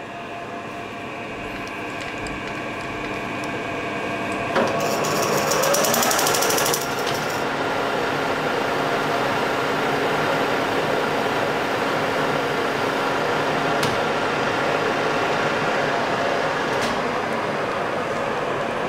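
Colchester Master lathe with a geared headstock starting up and running steadily while it takes a light turning cut on a steel distributor shaft. It builds over the first few seconds, gives a clunk and a short rising whine about four and a half seconds in, then settles to a steady gear whine.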